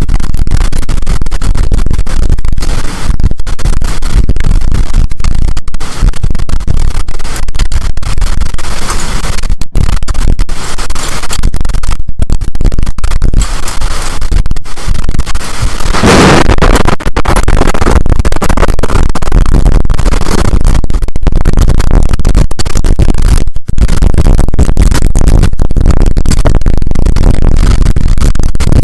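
Storm wind buffeting the microphone, loud and distorted from overload, with a stronger gust about sixteen seconds in.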